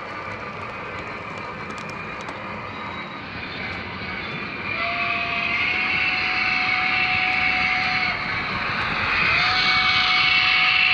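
O-gauge model steam locomotive (Lionel LionChief Plus 2.0 Alaska Railroad 0-6-0T) running on its track, its onboard sound system blowing two long steam-whistle blasts. The first starts about halfway in and the second near the end.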